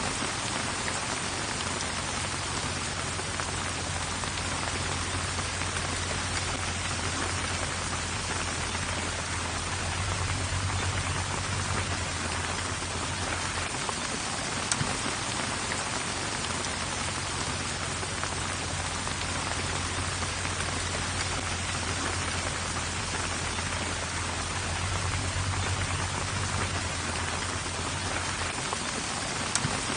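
Steady rain hissing evenly, with a low rumble of wind underneath that swells twice, and a couple of sharper single drop ticks.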